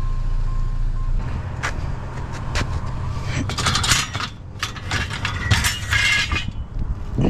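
Metal bed frame parts clanking and clinking as they are handled, a run of sharp ringing strikes from about a second and a half in to near the end, over a vehicle engine idling. A thin steady tone stops about a second in.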